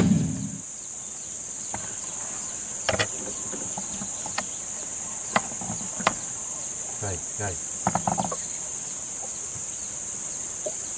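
Steady high-pitched drone of insects, with a scattered run of short knocks and clicks from about 3 to 8 seconds in.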